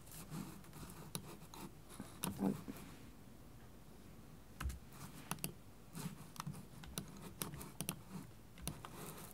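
Scattered light clicks and taps from a computer's mouse and keyboard, irregularly spaced.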